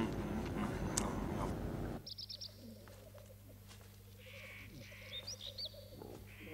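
A loud, dense mix of sound cuts off abruptly about two seconds in. It gives way to quiet forest birdsong: short high chirps and a few repeated calls over a steady low hum.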